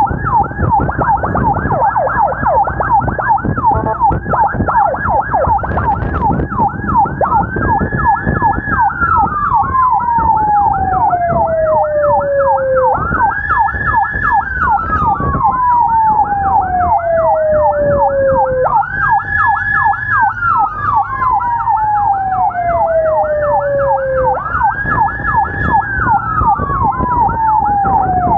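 Two electronic emergency sirens sounding together: a fast yelp throughout, joined about seven seconds in by a slow wail that rises quickly, holds, then slides down, repeating every five to six seconds. Motorcycle engine and road noise run underneath.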